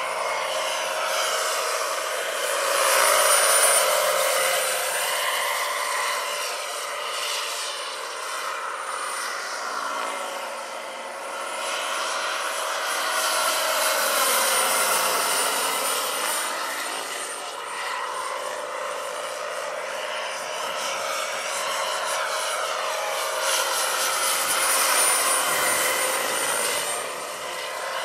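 Turbine-powered scale model CH-46 Sea Knight tandem-rotor helicopter in flight: a steady high turbine whine over the rotor noise. It grows louder and fades away three times as it flies past.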